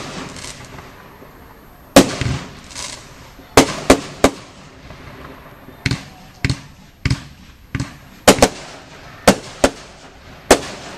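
Category F2 consumer fireworks going off: an irregular series of sharp bangs, about fifteen in eleven seconds, each trailing off in a short echo.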